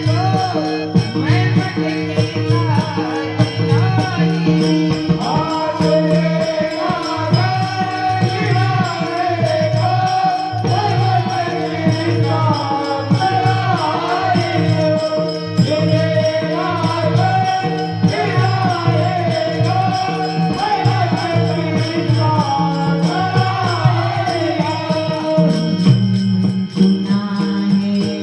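Devotional bhajan music: a wavering melody line over a steady drone, kept in time by evenly repeating percussion strokes with a jingling, cymbal-like edge.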